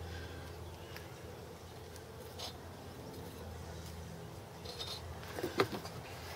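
Quiet background with a few faint clicks and taps from gloved hands handling a small tire and the bead sealer can's brush-cap applicator; the clearest clicks come near the end.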